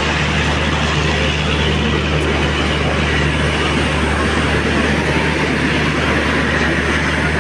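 Electric locomotive standing at a platform with its machinery running, giving a steady loud hum and rush that does not change.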